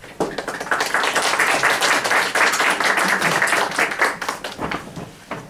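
Audience applauding: the clapping starts suddenly just after the opening, runs dense through the middle and thins out toward the end.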